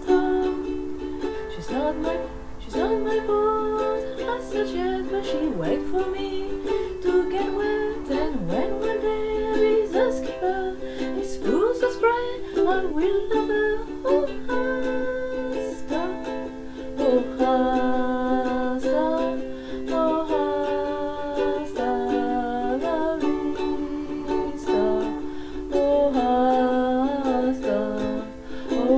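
Ukulele strummed while a woman sings a song with it.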